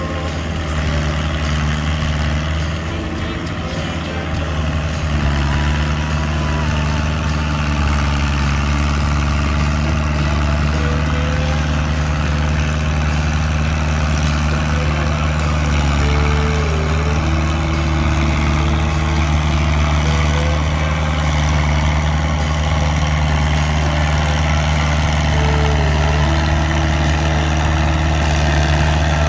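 Fiat 80-66DT tractor's diesel engine running steadily under load while ploughing, growing a little louder about five seconds in.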